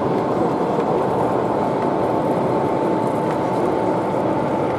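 Sound-fitted model diesel locomotives of the BR Class 40 type running: a steady engine drone with a thin, steady whistle above it.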